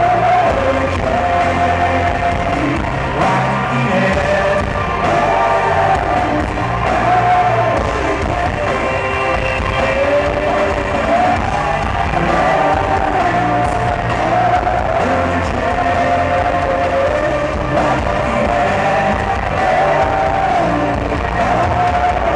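Live rock band playing loud distorted electric guitars, bass and drums, with a sung melody line over the top, heard from the audience in a hall.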